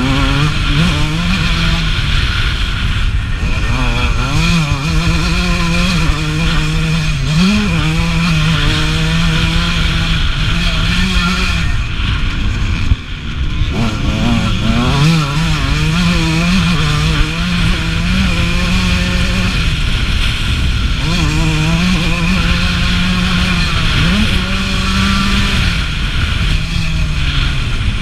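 1989 Suzuki RM125's single-cylinder two-stroke engine, heard onboard, running hard at high revs. Its pitch falls back and climbs again several times as the throttle is shut and reopened around the track's corners and jumps. A steady rushing noise runs underneath.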